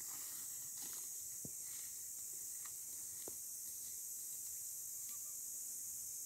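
Steady high-pitched chirring of an insect chorus, with a few faint light knocks and rustles of footsteps on dry straw mulch.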